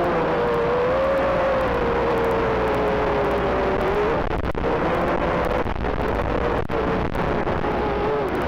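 Racing quadcopter's brushless motors and propellers whining, the pitch sliding up and down slowly as the throttle changes, with hiss and a few sharp clicks from the video link after about halfway.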